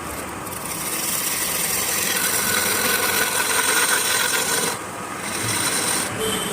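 Turning tool cutting into wood spinning on a lathe: a steady scraping cutting noise, with a faint whine from the machine. The cut eases off briefly twice in the second half, as the tool leaves the wood.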